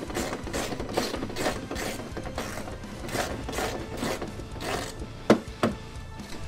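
A hand tool clicking and scraping as it works the fasteners of a pickup's plastic inner fender liner loose, in an uneven run of two or three clicks a second. Two sharper, louder clicks come about five seconds in.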